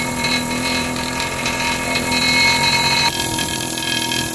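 Air-powered pneumatic hammer chattering rapidly against a rusty steel pipe, chipping off rust and old paint. The sound changes character about three seconds in, its higher part dropping away.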